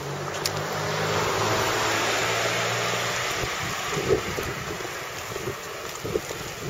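A car passes close by on the road and drives away. Its engine hum and tyre noise swell for about two seconds, then fade. A few soft knocks follow near the end.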